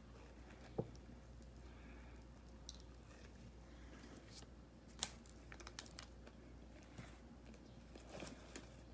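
Faint eating sounds: biting into and chewing a sub sandwich, with scattered small mouth clicks and smacks, the sharpest about five seconds in. A paper napkin rustles near the end.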